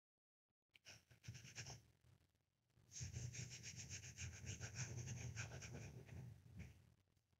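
Faint breathing close to the microphone: a short breath about a second in, then a longer one of about three and a half seconds.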